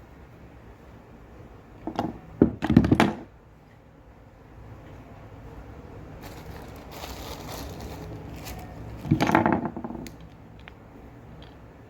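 Handling noises: clattering knocks about two seconds in and again near nine seconds, with a softer rustling stretch between them.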